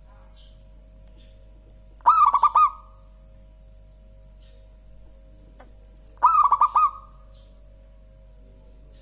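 Zebra dove (perkutut) singing: two cooing phrases about four seconds apart, each a quick run of about five coos. A faint steady hum and a few faint high chirps of other birds are underneath.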